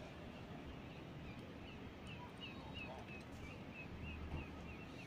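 A bird calling in a quick series of short chirps, about three a second, starting about a second and a half in, over a faint low rumble.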